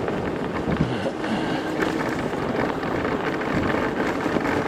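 Wind buffeting the microphone while a Teewing Mars XTR electric scooter rides over hard-packed snow, a steady rushing noise without engine sound.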